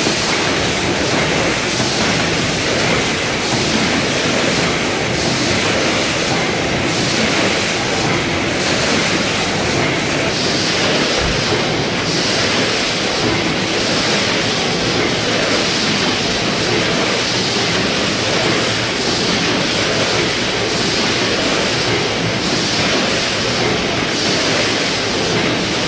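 Sejin Tech ST-8A1D rotary pouch packing machine and multihead weigher running: a steady, loud machinery hiss with faint regular ticking in the high range as bags are filled, sealed and dropped onto the conveyor.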